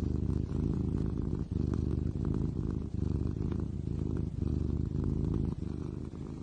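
A domestic cat purring loudly close to the microphone, a low rapid rumble that swells and breaks with each breath, about one cycle every one and a half seconds.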